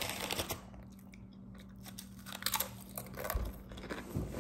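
A person chewing a mouthful of fish torta sandwich close to the microphone, with small crunchy clicks near the start and again around three seconds in. A dull low thump comes a little after three seconds.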